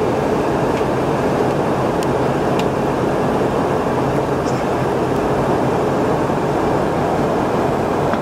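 Steady cabin noise of a Boeing 717-200 in flight: the rush of airflow over the fuselage and the drone of its tail-mounted Rolls-Royce BR715 turbofans, under a low hum.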